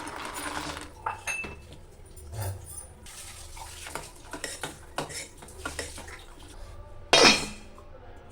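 Kitchen utensils and dishes clinking and knocking in scattered taps, with one much louder, noisier clatter about seven seconds in.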